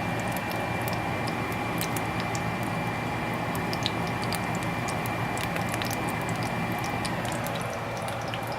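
Banana pancake batter frying in hot oil in a pan, sizzling with scattered small pops and crackles. A thin, steady high tone runs beneath it.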